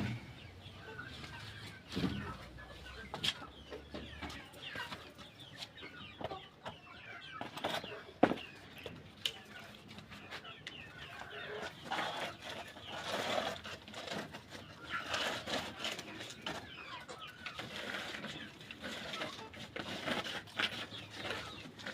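A flock of young chickens cheeping and clucking continuously, with a few sharp knocks, the loudest about eight seconds in.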